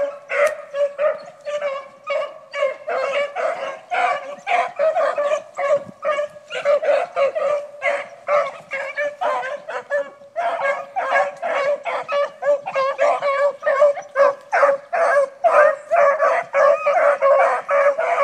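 A pack of three young beagles baying as they run a rabbit track, their calls overlapping in a dense, continuous string. The baying thins briefly about six seconds in, then grows denser after about ten seconds.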